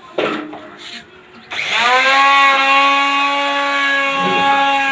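A handheld electric router is switched on about a second and a half in. Its pitch rises quickly as the motor comes up to speed, then holds steady as it runs. A short knock comes just before, near the start.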